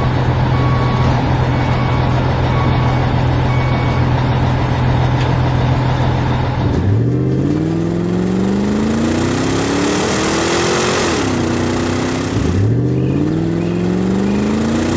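Heavy construction-vehicle engine running steadily with short intermittent beeps over it, then revving up twice, the pitch climbing each time, about seven and twelve and a half seconds in.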